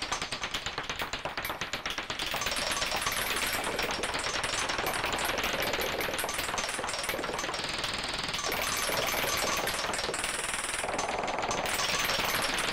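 Experimental electronic music from a Casio CZ-1000 phase-distortion synthesizer, randomly sequenced by a KORG SQ-1 and run through an Effectron II digital delay. It starts as rapid noisy clicking pulses, about seven a second, and about two seconds in merges into a denser, steady noisy texture whose tone shifts several times.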